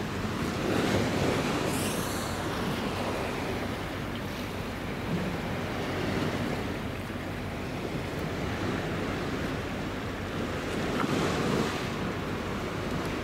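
Wind buffeting the microphone over harbour water lapping at the quay, a steady rushing noise that swells about a second in and again near the end.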